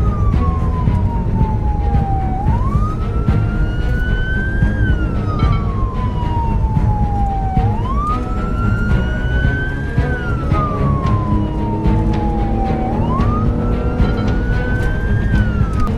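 Police car siren on a slow wail, its pitch climbing and then sliding back down about once every five seconds, over a heavy low rumble of road and engine noise.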